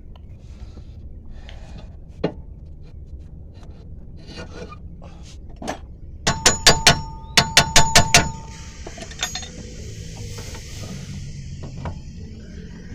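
Metal car parts and tools knocking during a CV joint installation: a few soft knocks, then a quick run of about ten sharp metallic strikes that ring, followed by a few seconds of soft hissing rustle.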